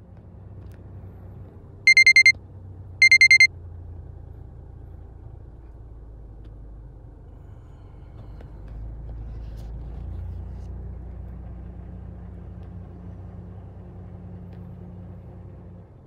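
Electronic alarm beeping: two short bursts of rapid beeps about a second apart, over a low steady rumble.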